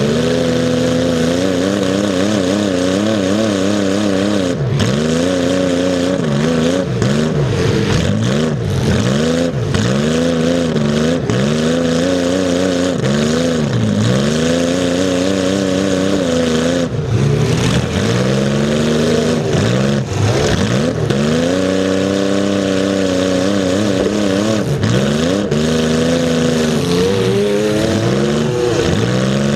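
Demolition derby car's engine revving up and down over and over as it drives and maneuvers, heard up close, with a few sharp knocks along the way.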